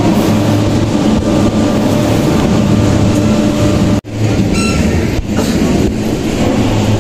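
Steady machine hum and rumble, with a strong low hum and a noisy wash over it; it breaks off for an instant about four seconds in and then carries on.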